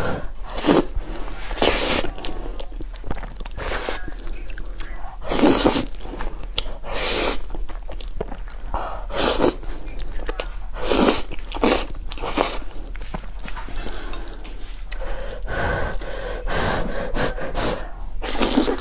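A person slurping and chewing noodles, with about a dozen short, loud slurps at uneven intervals between quieter chewing.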